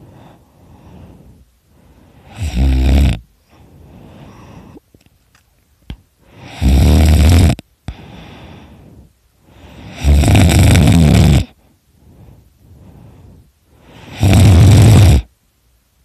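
A person snoring loudly: four loud snores about four seconds apart, each lasting about a second, with quieter breaths between them.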